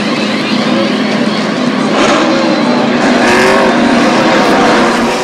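NASCAR Cup Series stock cars' V8 engines running on pit road during pit stops: loud engine noise throughout, with engine notes rising and falling as cars pass.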